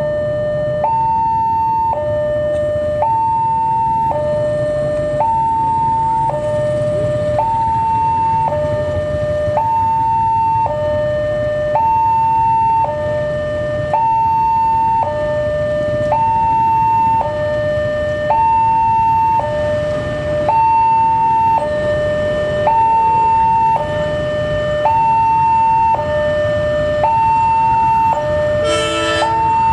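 Railway level-crossing warning alarm sounding a two-tone hi-lo signal, alternating between a higher and a lower tone about once a second, warning that a train is approaching. A low rumble runs underneath, and there is a brief multi-tone blast near the end.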